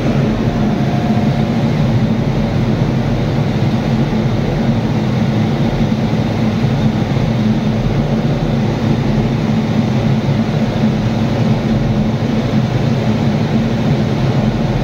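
Indian Railways diesel-electric locomotive engine running steadily at its top speed of about 1070 RPM during a shed speed test: a loud, even drone.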